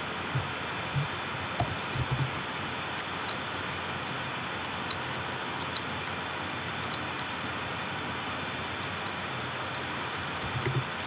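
Computer keyboard keys clicking at irregular intervals as code is typed, over a steady background hiss.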